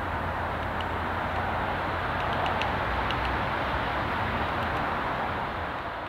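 Steady ambient rumble of distant traffic, a low hum under an even hiss, with a few faint short high peeps over it.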